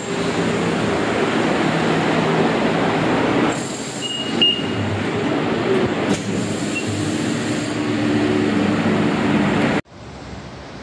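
A commuter train running through the station, a loud steady rumble with a low drone, and a short high electronic beep about four seconds in. The rumble cuts off abruptly about ten seconds in, leaving quieter outdoor background noise.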